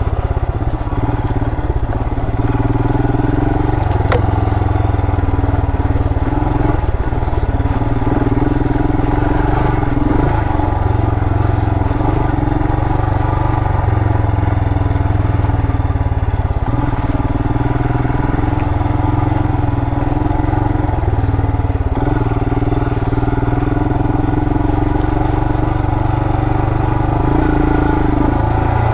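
Royal Enfield Himalayan's 411 cc single-cylinder engine running steadily as the bike is ridden along a rough dirt trail. Its note drops briefly and picks up again every five or six seconds.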